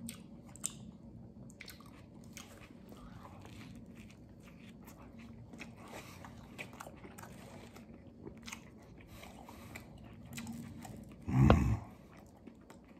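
A man chewing and biting into a vegetarian sub sandwich on wheat bread: soft wet chewing with many small crunches and clicks, and a louder thump near the end.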